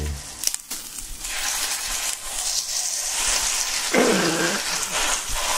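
Hanwoo beef sirloin steak searing on a hot griddle, its fat and juices sizzling steadily; the sizzle picks up about a second in. About four seconds in, a short falling vocal exclamation is heard over it.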